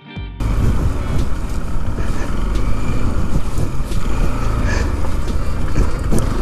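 Bajaj Pulsar NS200's single-cylinder engine running under way, with steady road noise, as the motorcycle rides over a rough, unpaved stretch. Background music cuts off less than half a second in, leaving the ride sound.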